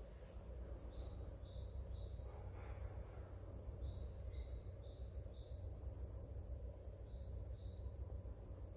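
Small birds chirping: many short, high notes repeated in quick, uneven runs, over a steady low background rumble.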